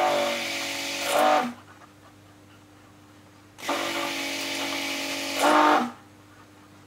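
Hand-held stick blender run in short pulses in a bucket of oil-and-lye soap batter, mixing it toward trace. It runs and cuts off about a second and a half in, then runs again for about two seconds from the middle, each pulse briefly louder just before it stops.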